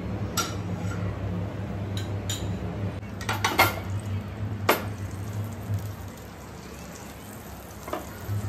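A metal spoon clinking against a nonstick frying pan as butter is knocked off it, then a few knocks and scrapes of the pan against the gas stove's grate as it is swirled to melt the butter. A steady low hum runs underneath and drops away for a couple of seconds past the middle.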